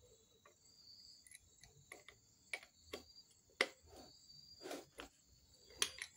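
Adjustable wrench clicking and scraping against a cast-iron sewing machine head as a bolt is loosened: a handful of irregular sharp metal clicks, the loudest about three and a half seconds in. A steady high chirring runs underneath.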